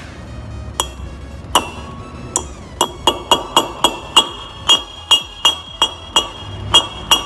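Hammer tapping a new wheel-bearing race into the hub of a rear brake drum to seat it. About sixteen sharp metallic strikes with a ringing tone, slow at first, then about three a second.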